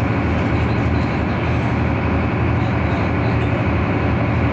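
Boat's engine running with a steady low drone under a constant rush of noise, heard from inside the cabin.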